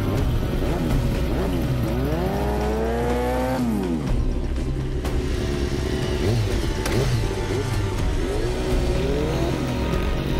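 Motorcycle engines revving in blips, the pitch rising and falling. About two seconds in, one rev climbs for over a second and then drops away sharply, with more short blips later on.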